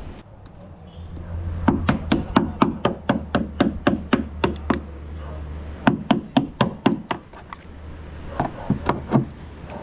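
Hammer striking a hand tool set against a wooden boat's plywood hull, to work out one of the boat's original galvanised nails. Quick, sharp strikes at about four a second in runs, with a pause before a last few near the end.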